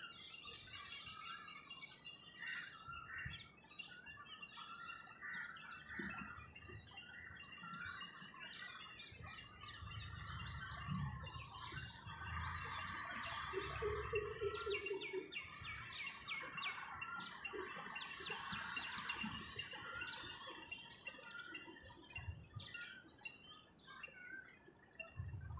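Dawn chorus of many small birds chirping and calling over one another, with one lower, held call about halfway through and a faint low rumble in the middle.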